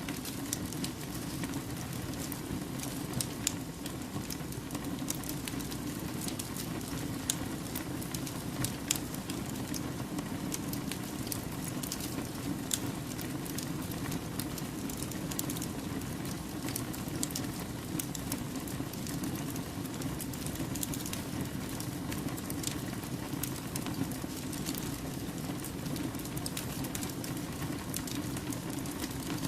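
Wood fire burning: a dense, irregular run of sharp crackles and pops over a steady low rush of flame.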